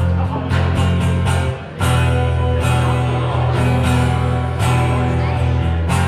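A live band playing, with guitar, a heavy bass line and regular drum hits; the music drops out briefly about a second and a half in, then comes back in full.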